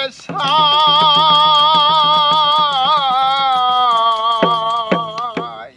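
A man's voice holding one long sung note with vibrato in a Bengali folk song, the note fading near the end. Hand percussion ticks in a quick, steady rhythm beneath it.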